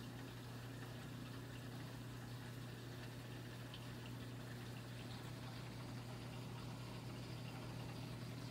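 Reef aquarium running: a steady low hum of pumps under a faint hiss and trickle of moving water.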